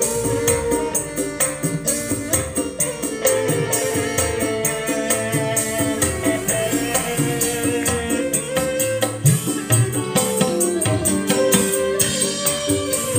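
Music with busy, rhythmic percussion played loud through a newly built dual-woofer wooden speaker cabinet driven by a power amplifier, as a test of the new box.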